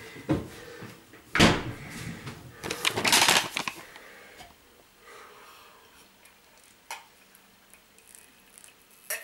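Household objects being handled in a small room: a knock about a second and a half in, then a rustling scrape of about a second, followed by a few faint clicks.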